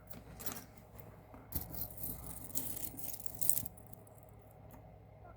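Costume jewelry being handled: small metal and bead pieces clinking and rustling in irregular clicks, the sharpest about three and a half seconds in. The clinking stops shortly after.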